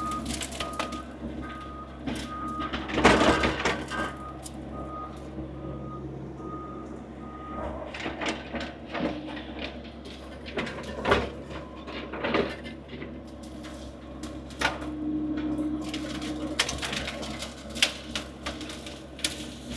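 Skid steer engine running steadily with its backup alarm beeping about one and a half times a second as it reverses; the beeping stops about seven and a half seconds in. Knocks and clanks from the machine working come throughout, the loudest about three seconds in.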